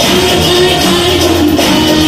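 Loud dance music with strummed guitar and a singing voice.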